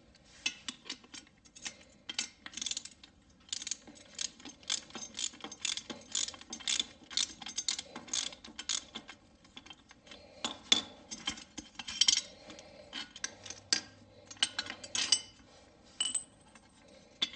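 Can-Am HD 3500 winch free-spooling as its cable is pulled off the drum by hand, the drum and gears clicking and rattling in quick, irregular runs with short pauses.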